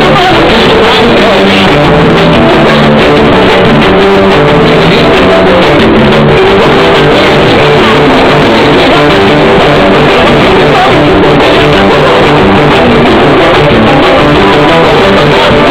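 Loud band music with singing, blasted over a trio elétrico sound truck's speaker system. It is loud throughout, with the recording level pinned near its maximum.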